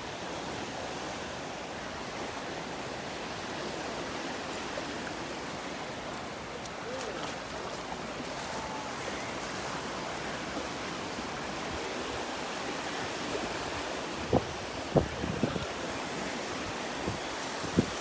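Small waves washing steadily onto a sandy shore, with wind on the microphone. A few brief low thumps come near the end.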